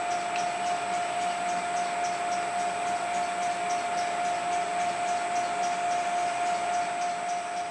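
Colchester 1800 manual lathe running under load while an 11.5 mm HSS cobalt drill in the tailstock chuck bores into a spinning Delrin blank. There is a steady whine with a faint tick repeating about three times a second.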